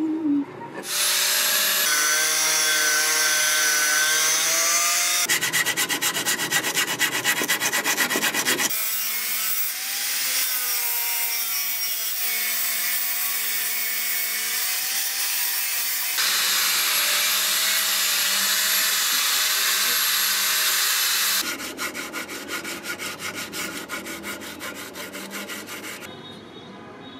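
Angle grinder with an abrasive disc grinding the steel of a truck-leaf-spring knife blade: a steady, noisy whine whose pitch wavers as the disc is pressed on. It alternates with stretches of rapid, even rasping strokes from filing the blade, and the last stretch of strokes grows quieter near the end.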